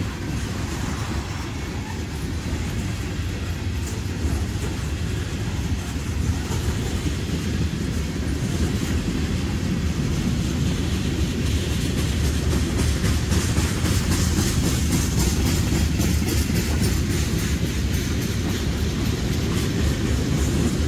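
CSX freight train cars rolling past on the rails: a steady low rumble of wheels on track, growing a little louder partway through.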